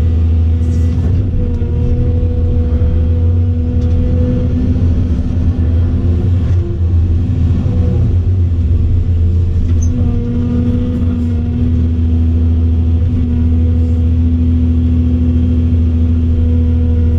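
Volvo EC700CL excavator's diesel engine running with a steady, even drone, heard from inside the cab while the machine digs and swings its bucket.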